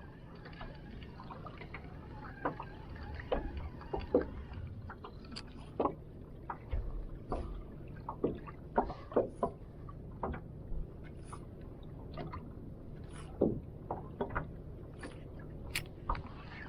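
Water lapping and gurgling against the hull of a small boat drifting on the sea, with a low steady rumble and many irregular short knocks and clicks.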